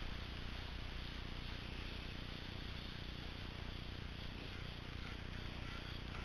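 Steady, even outdoor background hiss picked up by the hidden-camera sunglasses' small built-in microphone, with no distinct events.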